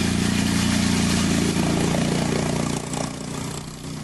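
Motorcycle engine running steadily as the bike rides through flood water, over a constant rush and splash of water. The sound gets quieter about three seconds in.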